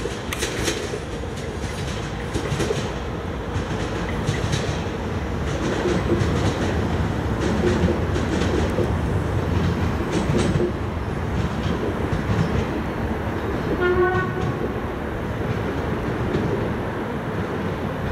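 Two-car railcar pulling away through the station, a steady low rumble with its wheels clicking over the rail joints. About fourteen seconds in, a train horn gives one short blast.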